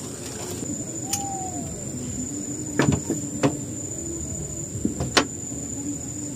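A few sharp knocks and clatters of gear being handled in a small metal boat, the loudest about three and five seconds in, over a steady high-pitched drone of night insects.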